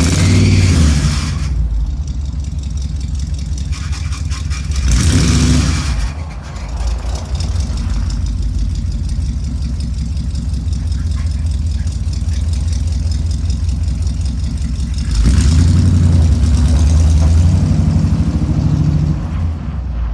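1986 Chevy Blazer's engine running with a low rumble, its revs swelling three times: briefly at the start, again about five seconds in, and for a longer stretch near the end.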